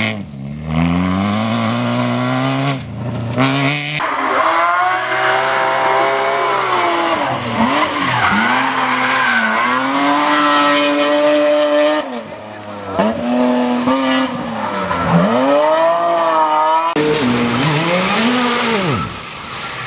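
Rally car engines revving hard on a special stage, the pitch climbing under throttle and dropping sharply at each gear change or lift. The sound cuts abruptly three times as one car gives way to the next.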